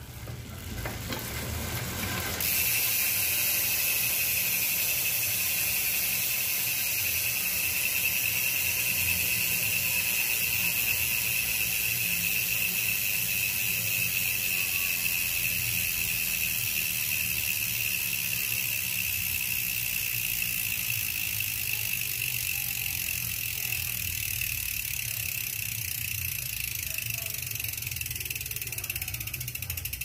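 Bicycle rear freehub freewheeling: the ratchet pawls click so fast that they blend into a continuous high buzz. It starts abruptly about two seconds in and slowly fades as the wheel spins down.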